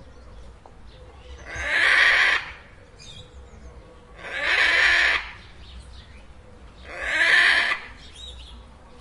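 Parrot giving three loud, harsh calls, each about a second long and evenly spaced about two and a half seconds apart.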